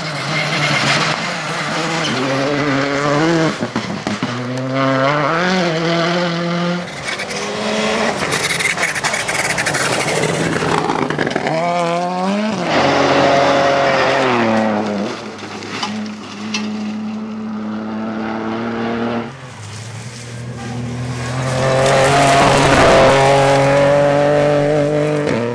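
Rally cars on a gravel stage, one after another, their engines revving hard through the gears, pitch climbing and dropping at each shift as they pass. The loudest pass comes near the end.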